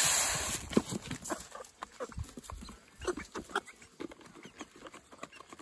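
Chicken feed poured from a scoop into a plastic feeder, a rushing hiss that ends about half a second in. Then Cornish Cross broiler chickens crowd the feeder, pecking with scattered small taps and soft clucks.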